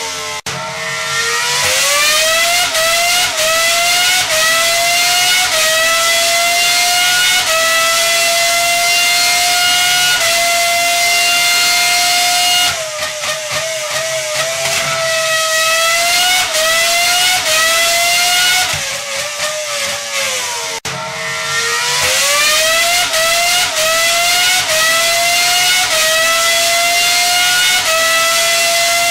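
A high-revving engine accelerating through the gears: a high whine that climbs, dips briefly at each shift about every second and a half, and climbs again. About 13 s in, and again near 19 s, the pitch falls and wavers as the engine slows, then the climb through the gears starts over.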